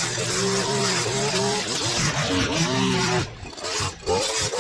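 Petrol line trimmer running at high revs, its nylon line cutting grass, the engine pitch rising and falling. About three seconds in the throttle eases off, then it comes back in short bursts.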